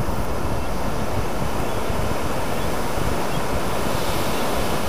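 Steady ocean surf breaking on the beach, with wind buffeting the microphone as a low rumble.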